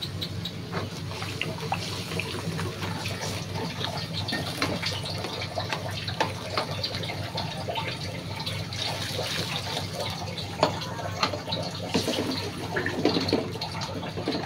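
Metal ladle stirring thin broth in a wok: liquid sloshing, with frequent light clicks and scrapes of metal on the pan, over a steady low hum.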